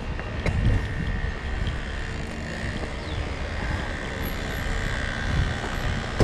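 A motor vehicle's engine running: a steady low rumble with a faint whine above it.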